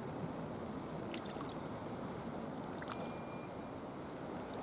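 Sea water sloshing and lapping against a breakwater: a steady wash with small splashy ticks scattered through it.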